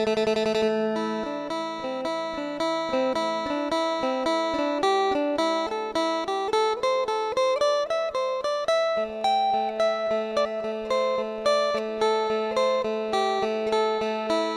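Phin, the Isan Thai plucked lute, playing a fast run of plucked melody notes over a steady drone note in a sing-style folk tune.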